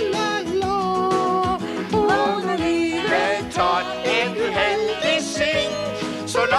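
Music: a song sung by a man and a puppet character, with instrumental accompaniment.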